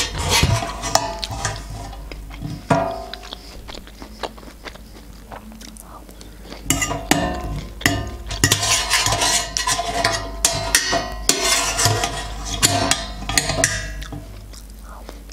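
A metal fork scraping and clinking on a metal serving tray while canned corn kernels are gathered up, in many quick, irregular scrapes and taps, busiest in the second half.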